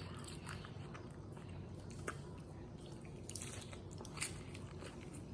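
Faint chewing of a chicken lettuce wrap, with a few short crunches of lettuce.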